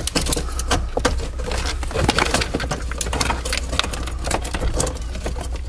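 Hands fitting a plastic OBD2 connector into its under-dash bracket: irregular plastic clicks, taps and rustling over a steady low hum.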